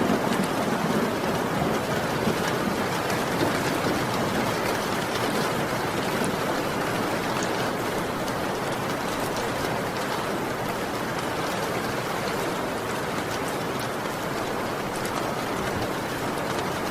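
Heavy rain falling steadily, a dense even hiss of drops, with the last of a low thunder rumble fading out in the first second.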